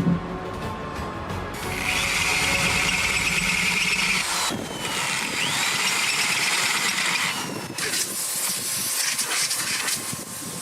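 A high-pitched machine whine with a hissing rush, in two stretches of a few seconds each split by a short break, over background music.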